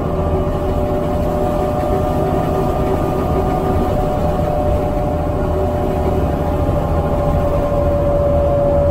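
A 2004 New Flyer D40LF transit bus under way, heard from inside the cabin. Its Cummins ISL diesel engine gives a steady low rumble, with road noise and a steady whine that grows a little stronger near the end.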